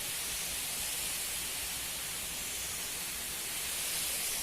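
Waterfall rushing: falling water making a steady, even hiss.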